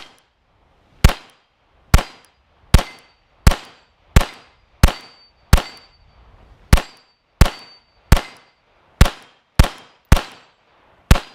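Agency Arms Glock 17 9mm pistol fired in a steady string of about fifteen loud shots, roughly one every three-quarters of a second, with a brief pause about halfway through.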